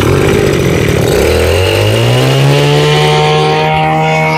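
Mitsubishi TB20 two-stroke brush cutter engine just after being started: it runs unevenly for about a second, then revs up, its pitch rising, and holds a steady high-speed run.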